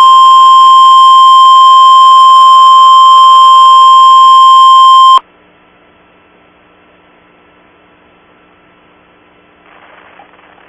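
NOAA Weather Radio warning alarm tone, a loud steady single-pitch beep of about 1 kHz sent in a required weekly test to set off tone-alert weather radios. It cuts off suddenly about five seconds in, leaving faint radio hiss.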